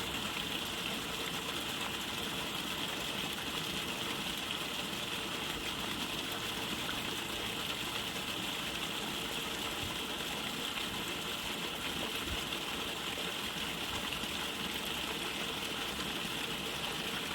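Steady tinnitus-masking noise: an even, unchanging hiss, strongest in a high band.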